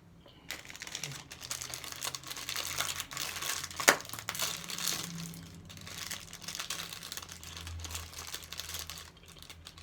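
Food wrapper crinkling as it is handled close to the microphone, a dense continuous crackle starting about half a second in, with one sharp click about four seconds in.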